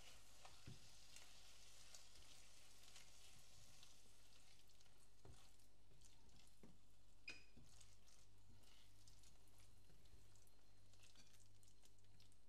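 Faint sizzle of chopped leeks cooking in a milk-and-flour sauce in a nonstick frying pan, with soft scrapes of a spatula stirring them and a light click about seven seconds in.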